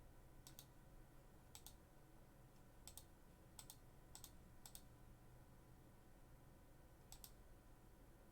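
Faint, scattered computer clicks, seven times in about seven seconds, most as a quick pair, over near-silent room tone.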